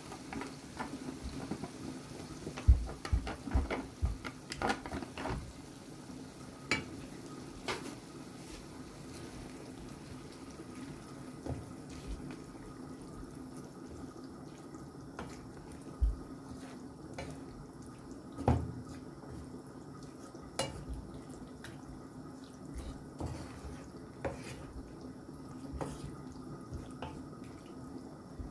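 A spoon stirring chicken tikka into onion gravy in a pan, knocking and scraping against the pan at irregular intervals, over a steady low hum.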